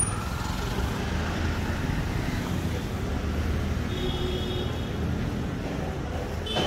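Steady road-traffic noise at a junction: a low rumble of engines and tyres, with wind on the microphone. A brief high-pitched tone sounds about four seconds in, and another short one near the end.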